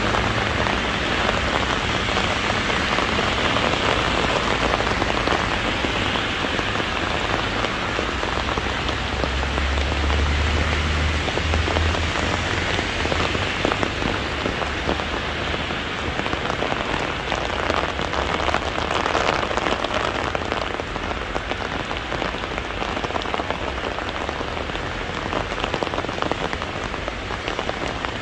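Heavy rain falling steadily on hard surfaces, a dense even hiss of many drops, with a brief low rumble about ten seconds in.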